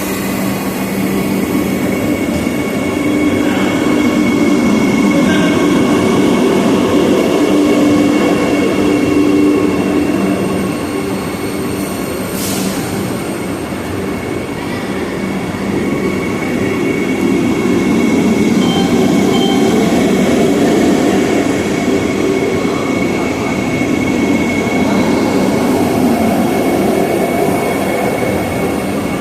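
Vande Bharat Express electric train running at speed: a continuous rumble of wheels on rails with a thin steady whine, swelling louder twice, and a single sharp click about twelve seconds in.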